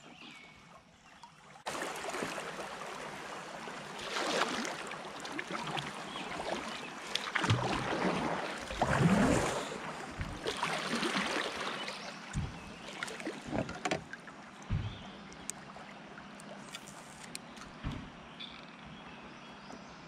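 Water rushing and splashing along the hull of a Jackson Cuda 14 kayak as it runs through a shallow riffle. The noise comes in suddenly about two seconds in and is loudest through the middle. It then eases, with several short knocks on the hull near the end.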